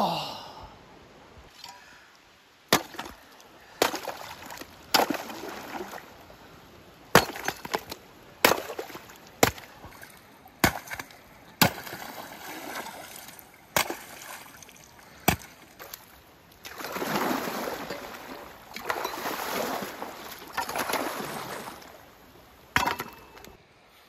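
Axe striking the ice of a frozen pond: about ten sharp knocks, a second or so apart, followed by several seconds of splashing, sloshing water. A man's loud gasp at the very start.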